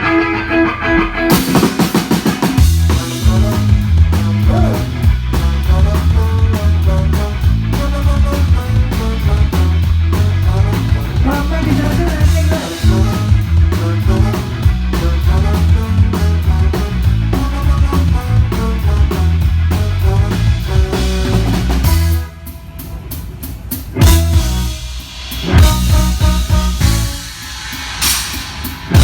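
Loud rock music with drum kit, heavy bass and guitar played through a large PA sound system at a sound check. About 22 seconds in the band drops out abruptly, and loud drum hits and music come back a couple of seconds later.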